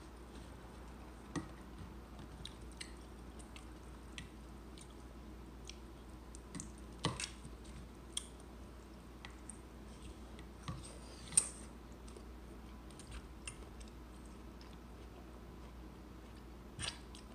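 Quiet table-eating sounds: irregular small clicks and taps of a fork against a bowl, a few louder ones among them, with soft chewing and the peeling of rambutans.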